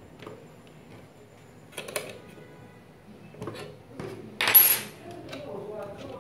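Hands fitting propellers onto a drone's motors: scattered light clicks and knocks of the parts being handled, with one louder, brief clink about four and a half seconds in.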